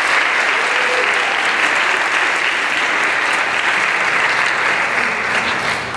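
Audience applauding steadily at the end of a performance.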